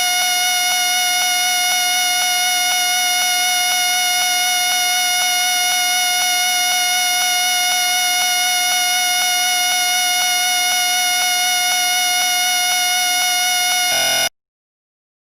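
A whistle blown in one long steady note with a slight warble, cutting off abruptly about fourteen seconds in and followed by a second of silence.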